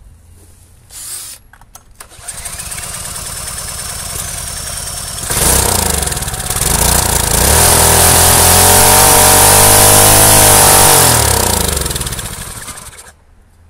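Harbor Freight Predator single-cylinder engine, running with no head gasket, spun over by a cordless drill on its flywheel nut for a few seconds until it fires. It runs up to a steady high speed, then slows with falling pitch and dies near the end.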